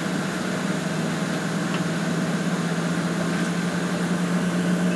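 Steady cabin hum inside a Bombardier CRJ regional jet before takeoff: an even rushing noise over a low, steady drone.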